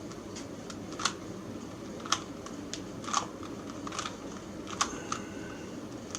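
Plastic Rubik's Cube layers being twisted by hand, each turn a sharp click, about one a second, over a steady low background hum.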